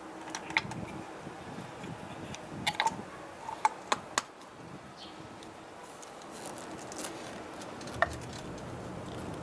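Hands working a motorcycle's rubber spark plug caps among the engine's hoses: rubbing and rustling, with sharp plastic clicks about half a second in, a cluster of them around the middle, and one more near the end.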